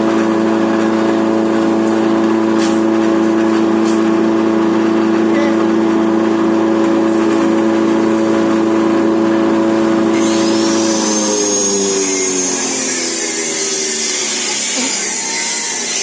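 Grass chopper machine running steadily, then slowing about eleven seconds in, its engine note falling in pitch while a high hiss and a falling whine come up.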